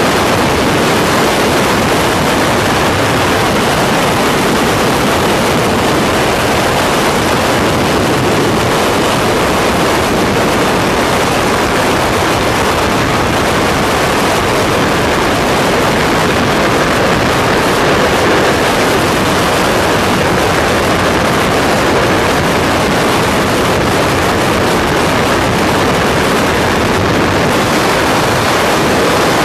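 Skydiving freefall wind rushing over the microphone: a loud, steady wind noise with no change throughout.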